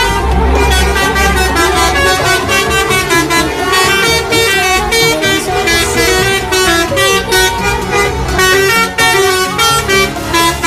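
Bus 'telolet' multi-tone horns playing quick runs of stepping notes.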